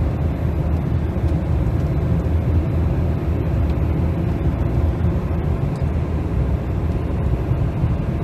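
Mercedes GLK 250 heard from inside the cabin while driving at about 75 to 80 km/h and gently accelerating: steady low road and drivetrain noise.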